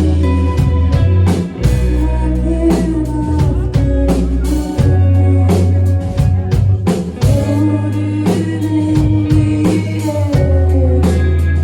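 Live rock band playing: drum kit keeping a steady beat, electric guitar and bass, with a woman singing in places.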